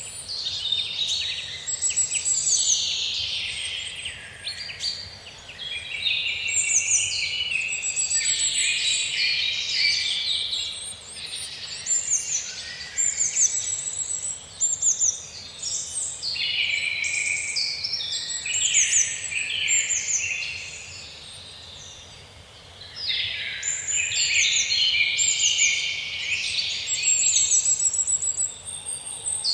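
Several songbirds singing at once, overlapping high-pitched phrases full of rapid repeated notes and chirps, over a faint background hiss. The chorus thins briefly around five seconds in and again for a couple of seconds past the twenty-second mark.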